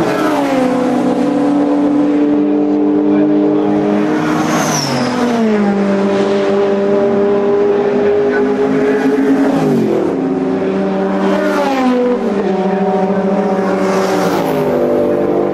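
Racing cars passing at speed one after another, about five in all. Each engine note drops in pitch as the car goes by, and there is scarcely a gap between one car and the next.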